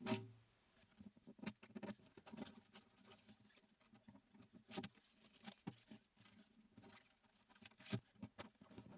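Faint, scattered ticks and rustles of fingers loosening the string knots at an oud's bridge and pulling the old strings free, with a couple of sharper clicks, one near the middle and one near the end.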